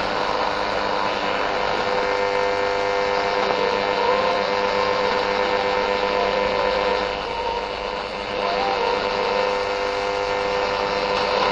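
AM radio receiver tuned across the medium-wave band around 1071–1080 kHz, giving static hiss with steady, slightly wavering whistles from interfering stations rather than a clear broadcast.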